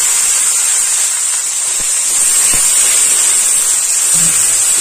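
Khesari greens and dal sizzling in hot mustard oil in a steel kadai as they are stirred with a metal spatula: a steady frying hiss with a couple of light spatula clicks.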